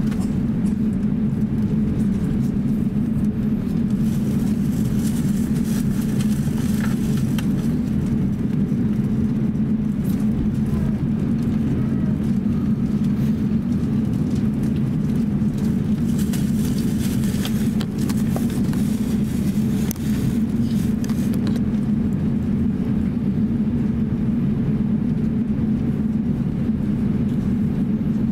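Steady low rumble inside the passenger cabin of an Airbus A350-900 taxiing, the hum of its Rolls-Royce Trent XWB engines at taxi power mixed with the cabin air system.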